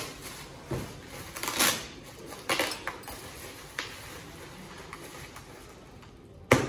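Plastic bubble-wrap parcel packaging rustling and crinkling as it is handled and cut open with scissors, in scattered irregular crackles and snips, with a sharper, louder crackle near the end.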